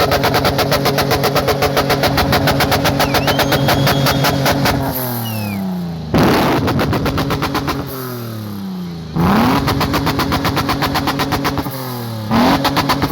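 A Toyota Hilux 4.0-litre V6 engine is revved hard and held at high revs with a fast, even pulsing, then let fall back toward idle. It is blipped sharply once, revved and held again, let fall, and blipped once more near the end.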